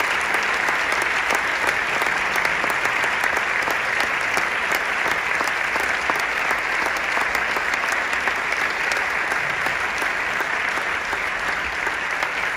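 Large theatre audience applauding steadily: a dense, even patter of many hands clapping.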